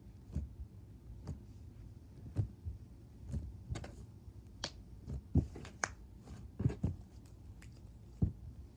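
Cornstarch slime being squished and stretched by hand, giving irregular sharp clicks and pops, most frequent about halfway through.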